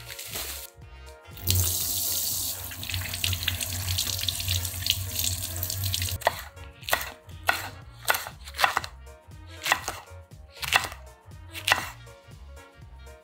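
Kitchen tap running water over peppers in a stainless-steel sink. About six seconds in, the water stops and a knife starts chopping small green chili peppers on a wooden cutting board, about two cuts a second.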